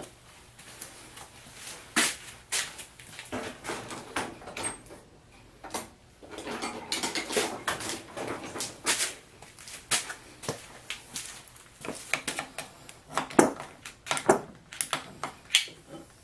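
Metal vise parts being handled on a bench: irregular clinks and knocks, with a stretch of scraping and shuffling in the middle.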